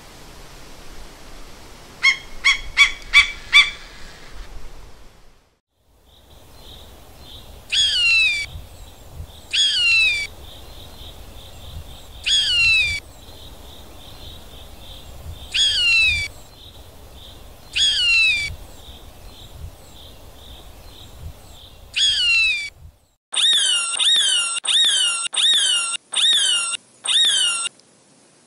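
Steller's sea eagle giving a quick run of six short calls. Then a common buzzard mewing: long calls that slide down in pitch, one every two seconds or so, over a steady high buzz. Near the end a hawk screams about seven times in quick succession, each scream falling in pitch.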